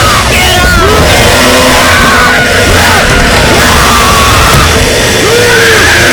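Loud music with yelling, screaming voices over it.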